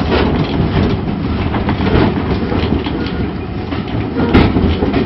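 Railway carriage of a steam-hauled train running along the track, heard from inside its wooden compartment: a steady rumble and rattle with wheels clattering over the rails and a sharp knock a little over four seconds in.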